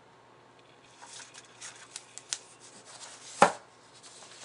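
Hardcover picture book handled and closed on a table: light rustling of pages and cover with a few small clicks, then one solid thud about three and a half seconds in as the covers shut.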